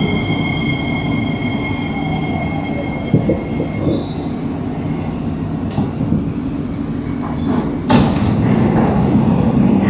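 Singapore MRT electric train slowing into an underground station, heard from inside the carriage: a constant rumble of wheels on track under a high steady whine, which steps up to higher tones about three seconds in and then fades out. A sudden loud burst of noise comes about eight seconds in.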